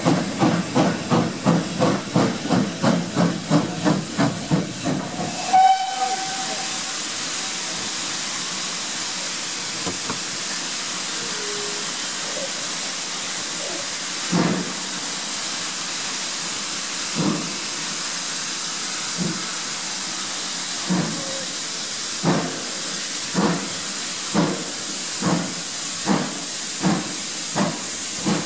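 GWR Hall-class 4-6-0 steam locomotive working its train, its chimney exhaust beating rapidly and evenly for the first few seconds. The beats break off suddenly with a short high tone, leaving a steady hiss of steam and passing air with only an occasional beat. Near the end the exhaust beats come back, about one a second and gradually quickening.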